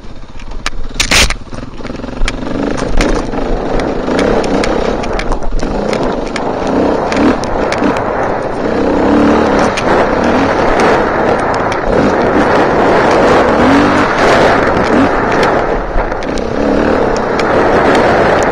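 Enduro dirt bike engine running hard under throttle, rising and falling as the bike is ridden over rough ground, with frequent knocks and scrapes from the bike jolting along. A sharp loud knock about a second in.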